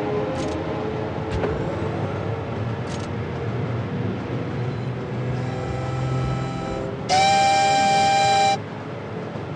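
A train running with a steady rumble and a few sharp clicks. About five seconds in, a quieter horn sounds, then a loud horn blast lasts about a second and a half.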